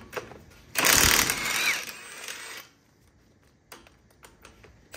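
Cordless impact wrench hammering on a 21 mm front hub-assembly bolt for about two seconds, starting about a second in and loudest at first. A few light clicks follow near the end.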